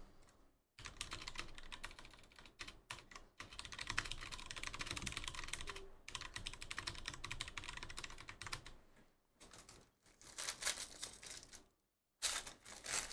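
Rapid typing on a computer keyboard, a dense run of key clicks with short pauses. Near the end a foil trading-card pack crinkles as it is torn open.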